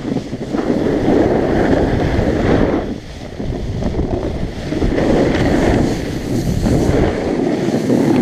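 Wind rushing over the camera microphone together with skis scraping and hissing over packed snow during a run down a piste. Loud, swelling and easing in waves, then dropping away at the end.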